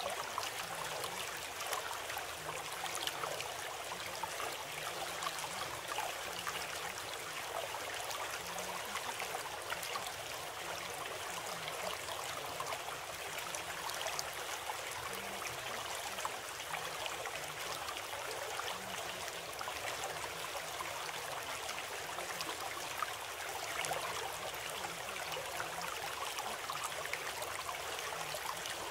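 Steady sound of running water, like a small stream.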